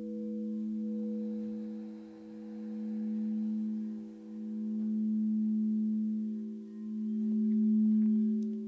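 Singing bowls ringing in a sustained drone: a strong low tone with a few higher tones above it, the sound swelling and easing about every two seconds.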